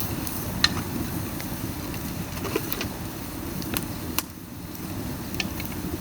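Dried bamboo burning hard in a pail can with holes cut in its lower side: a steady low roar of flames drawn up by the draft, with sharp crackles and pops scattered through, the loudest a little after half a second in.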